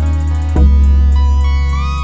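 Background music led by guitar over a deep bass; a new bass note comes in about half a second in, with a fast ticking beat on top.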